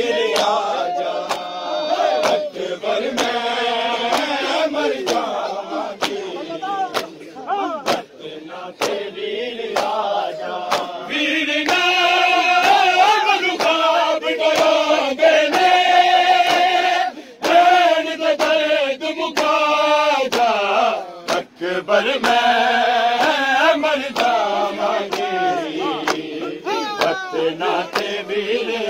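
A large crowd of men chanting a Shia mourning lament (noha) in unison while beating their chests in matam, the sharp slaps falling in a steady rhythm under the voices.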